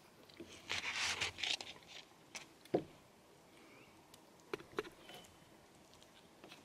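Steak being cut with a knife and fork on a paper plate: soft scraping of the cutlery and the plate, with a sharper knock a little under three seconds in and two small clicks about a second and a half later.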